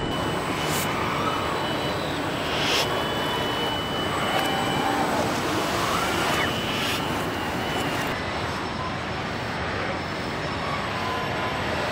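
Car assembly-plant floor noise: a steady roar of machinery and air, with a few short hisses about a second in, near three seconds and past six seconds.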